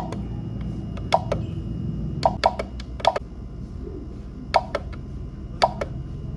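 Buttons on a biometric time-attendance terminal's keypad being pressed to enter a password: a dozen or so short clicks at an uneven pace, often in quick pairs, over a low steady hum.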